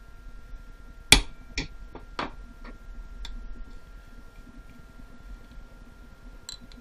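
Hand impact driver struck with a hammer: three sharp metal taps about half a second apart, the first loudest, then a few light clicks. The taps are jarring loose tight cover screws on a Mikuni watercraft carburetor.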